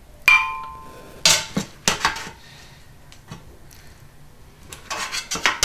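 Metal spoon clanking and clinking against a stainless steel pot and a glass blender jar while cooked broccoli is scooped across. A sharp ringing clank comes about a quarter second in, a few more clinks between one and two seconds in, and a quick run of clinks near the end.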